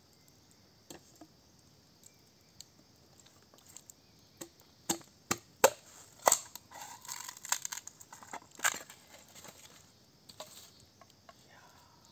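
Bamboo being cut and split by hand with a knife: a run of sharp cracks and snaps with some rustling, the loudest and most frequent in the middle.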